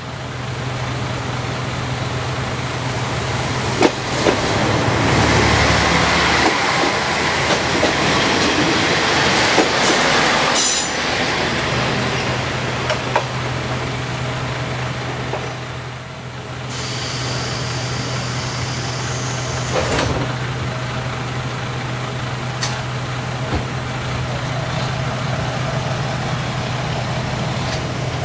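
Diesel engine of a KiHa 35-series railcar running steadily, heard from inside the car. The engine grows louder for a few seconds near the start. A sharp hiss of air comes about ten seconds in, and a longer hiss follows a little past the middle, with a few scattered clicks.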